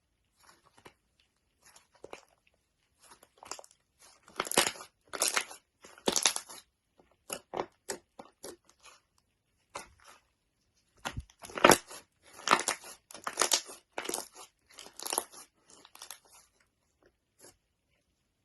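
Slime being squeezed and pressed by hand, giving irregular runs of quick sticky clicks and pops, in two busier spells with quieter pauses between.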